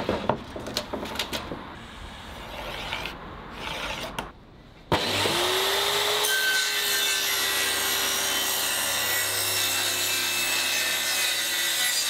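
A few light clicks and knocks as a board is measured. About five seconds in, a corded handheld circular saw starts suddenly and runs steadily, cutting through a thin plywood sheet, its motor note sagging slightly as the blade works through the wood.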